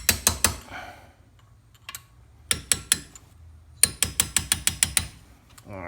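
Hammer tapping a small steel pin punch to drive the pad retaining pins out of a Brembo brake caliper: sharp metallic taps in short runs. The last run is a quick series of about ten.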